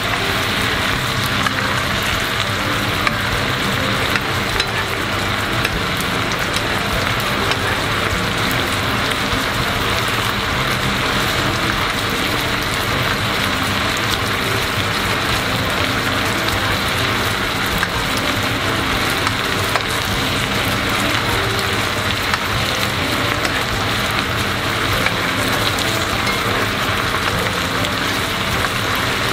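Garlic-soy sauce bubbling and sizzling steadily in a frying pan around chicken thighs, reducing on high heat to a thick glaze, with a spoon stirring and basting now and then.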